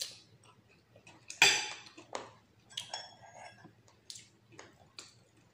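Metal spoon and fork clinking and scraping against a plate while eating, a series of short clinks with the loudest about one and a half seconds in.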